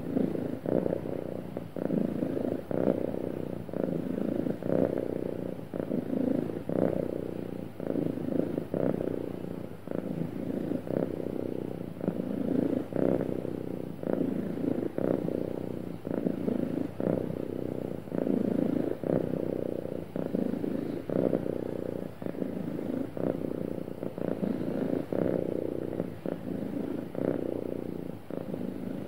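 Domestic cat purring steadily, the purr swelling and easing about every two seconds.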